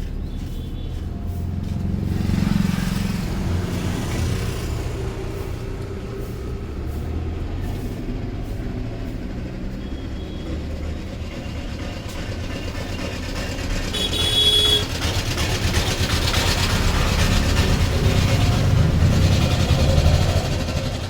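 Road traffic: a steady low rumble of passing vehicles, with a brief high-pitched tone about 14 seconds in and a louder vehicle going by near the end.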